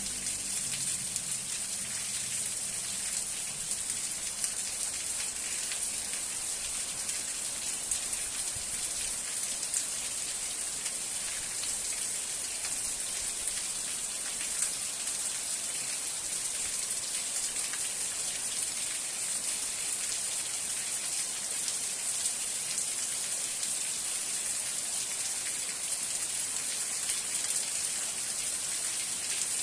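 Steady rain: a constant hiss with many small drop ticks, the hiss strongest in its high, bright part.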